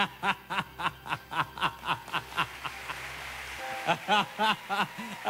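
A person laughing in quick, even bursts, about four a second, in two runs with a short break between them.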